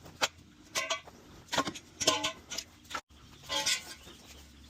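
Hammer knocking apart the steel tube frame of a trampoline: a run of about seven short, irregular metallic clanks, each with a brief ring.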